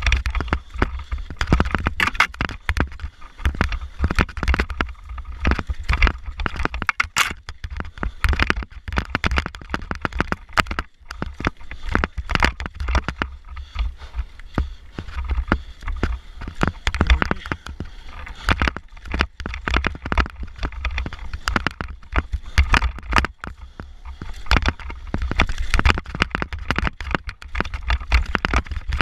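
Downhill mountain bike descending a rough, rocky dirt trail at speed: the bike rattles and clatters continuously as the tyres and suspension hit rocks and roots, with a few short squeaks. A steady low rumble of wind buffets the camera microphone throughout.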